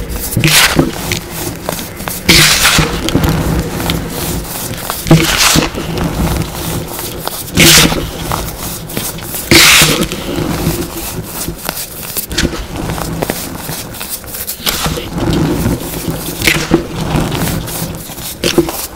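Hands crushing and crumbling clumps of packed baking soda, the powder crunching in short bursts every couple of seconds, the loudest about eight and ten seconds in, with softer rubbing between.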